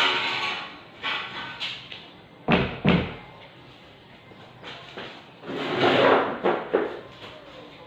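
Knocks and scraping as a long pole is handled by a wooden door: bouts of rubbing noise, with two heavy knocks about two and a half seconds in.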